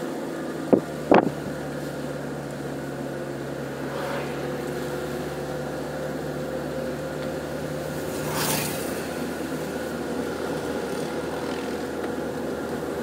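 Car engine and road noise heard from inside the cabin while driving slowly, a steady hum. Two sharp clicks come about a second in, and a short rush of noise passes about eight and a half seconds in.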